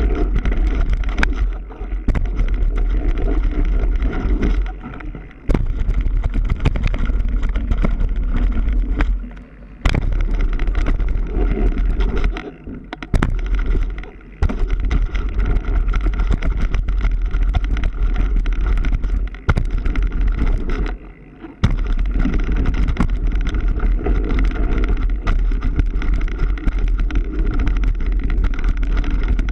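Mountain bike rolling fast down a dirt trail: a steady rush of wind on the microphone and tyre noise, with frequent knocks and rattles from the bike over rough ground. The rush drops away suddenly for a moment several times.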